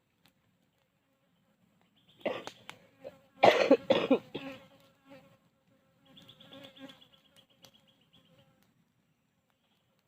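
A person coughing: a short cough about two seconds in, then a louder run of coughs a second later. An insect buzzes steadily from about six to eight and a half seconds in.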